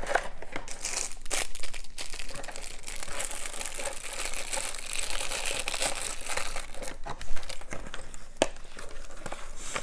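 Plastic packaging crinkling and rustling as it is handled, with scattered sharp clicks and one louder knock about seven seconds in.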